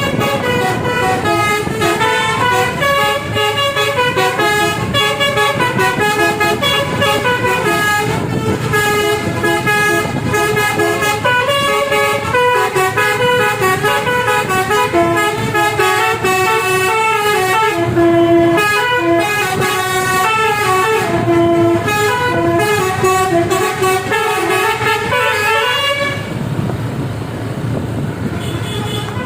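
A bus's telolet musical air horn plays a long melody of short notes stepping up and down in quick succession. It cuts off suddenly about 26 seconds in, leaving engine and road noise.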